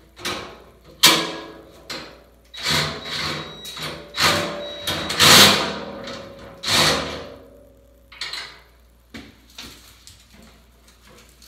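Irregular clunks and scrapes of a fuel tank being worked against its metal mounting brackets as rubber pads are fitted between them. The noises are loudest in the middle and taper to a few light knocks near the end.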